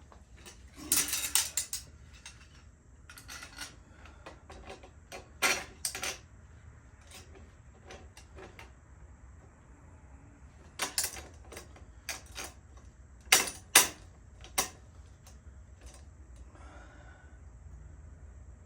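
Metal bicycle parts being handled: bursts of clinks and knocks as pieces strike one another and a hard surface, in about five groups with quiet gaps between.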